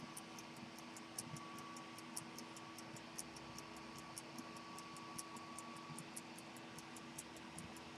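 Antique 18k gold jumping-seconds pocket watch movement ticking faintly and evenly, about five ticks a second: the escapement beating as the watch runs.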